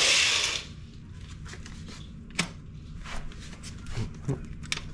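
A short rush of noise, then scattered light clicks and knocks: close handling noises in a small room.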